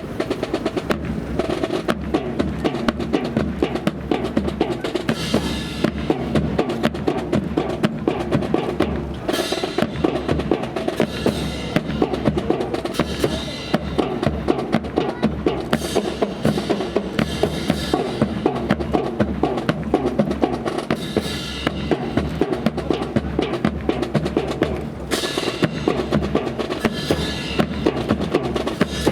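Drums playing a fast, steady rhythm of sharp strikes over deep bass-drum hits.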